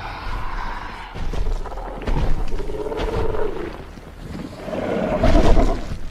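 Skull Crawler monster sound effect: rough, continuous growling that swells into roars, the loudest about five seconds in.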